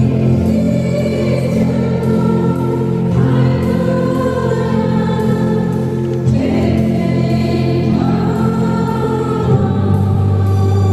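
A church choir and congregation singing a hymn together over sustained organ chords, the notes held long and the singing steady.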